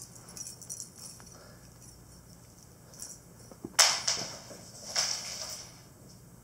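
A young Siberian Forest cat's paws scrabbling and skidding on a hardwood floor as she dashes past. There are two short scuffling bursts about a second apart near the middle, the first the loudest, with a few light taps before them.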